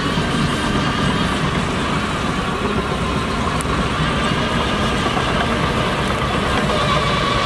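Heavy diesel earthmoving machinery running steadily, with a faint high whine over the engine noise.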